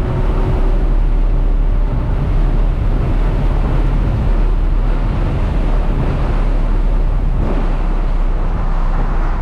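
Car cruising at highway speed: a loud, steady mix of engine, tyre and wind noise.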